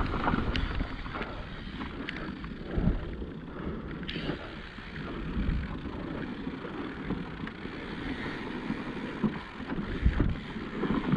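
Mountain bike rolling down a dry, loose dirt trail: steady tyre noise and wind on the microphone, with scattered knocks and rattles from the bike over bumps.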